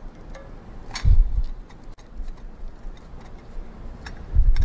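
Small metallic clicks and ticks of a flathead screwdriver working the screws out of a pump's sheet-metal coupling guard. There are two dull thumps, about a second in and near the end, as the guard is handled.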